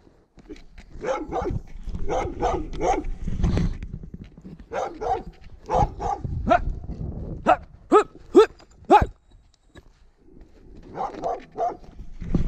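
Livestock guard dog barking at a stranger in repeated short bursts, with a quick run of four sharp barks about eight to nine seconds in. The dog is threatening to attack.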